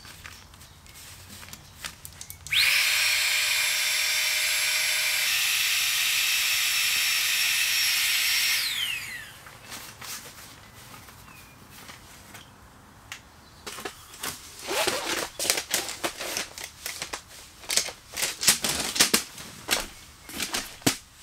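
Small electric air pump inflating a sleeping mat: it switches on abruptly, runs steadily for about six seconds, then cuts off and winds down with a falling whine. In the second half there are scattered clicks and knocks as a folding aluminium table is handled.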